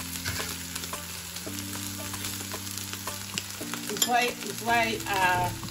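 Strips of dried lotia fish (Bombay duck) sizzling as they fry in oil in a nonstick wok, with a metal fork scraping and clicking against the pan as they are stirred. Background music with held low notes runs underneath, and a melody comes in near the end.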